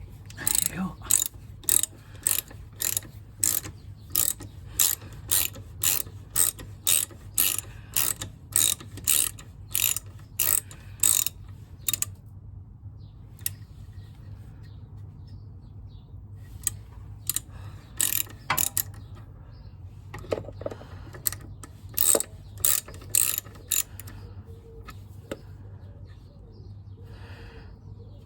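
Socket ratchet clicking as it undoes the bolts on a motorcycle's rear brake caliper. Runs of quick, even clicks come about two a second for roughly twelve seconds, with a few scattered clicks after that and another short run a little after twenty seconds in.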